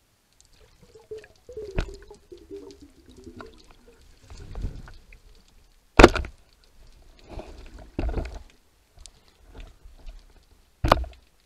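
A band-powered speargun firing underwater: a sharp, very loud crack about six seconds in, with further knocks and clatter around eight seconds and another sharp crack near the end. Earlier there is a rattling tone that falls in pitch.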